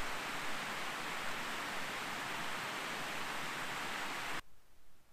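Creek water running down a series of small limestone sinter terraces: a steady rushing hiss that cuts off abruptly near the end.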